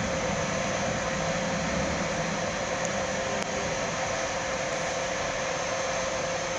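Electric locomotive moving slowly away along the platform track: a steady fan-like hiss with a constant mid-pitched whine.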